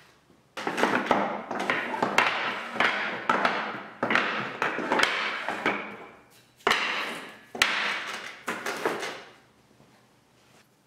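Glued-up hardwood strips for end-grain cutting boards being slid and knocked against each other and a wooden table by hand, in several runs of scraping with sharp wooden clacks, stopping about nine seconds in.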